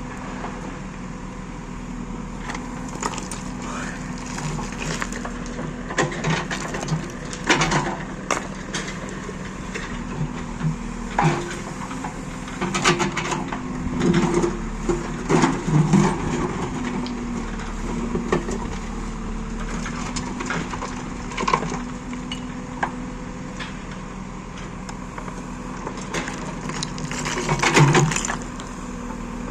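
JCB backhoe loader's diesel engine running steadily while its bucket works, with irregular crunching and cracking of earth and stones, heaviest in several clusters through the middle and near the end.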